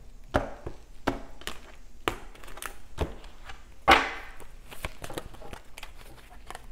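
Tarot cards being shuffled and handled on a table: irregular light taps and knocks, with one louder knock about four seconds in.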